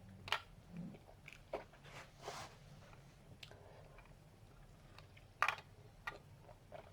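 A person hiccuping: short, sharp throat clicks at uneven intervals, the loudest about five and a half seconds in, with softer mouth sounds between.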